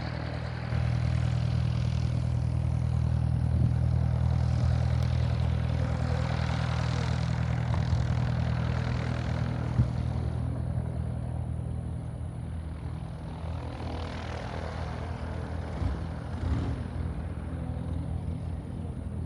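Single-engine Cessna's piston engine and propeller running with a steady low hum. It grows louder about a second in and fades gradually through the second half.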